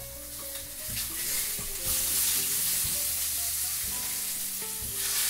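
Food sizzling in a frying pan on a gas stove, the hiss growing louder in the middle.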